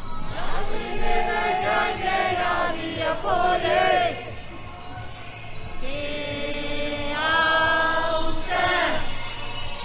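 A group of voices singing a song in two long phrases of held notes, with a steady low accompaniment underneath.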